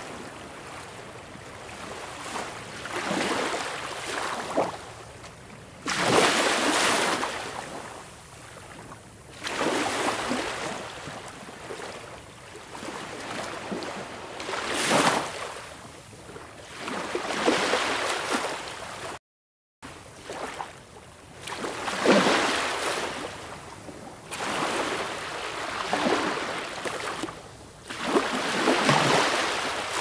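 Sea waves breaking and washing in, swelling and fading every few seconds with a hissing wash of surf. The sound drops out for about half a second about two-thirds of the way through.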